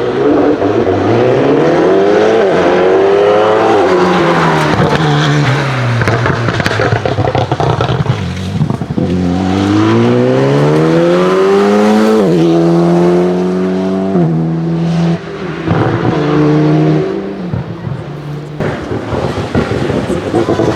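Alpine A110 R-GT rally car's turbocharged 1.8-litre straight-four revving hard: the pitch rises, falls as it lifts off, then climbs steeply again and drops in steps through upshifts. Sharp crackles from the exhaust come in the latter part as the revs fall away.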